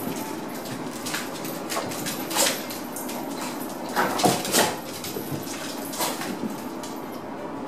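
A Shiba Inu puppy and a Cavalier King Charles Spaniel at rough play, with a few short, sharp yips and scuffles. The loudest come in a cluster about four seconds in.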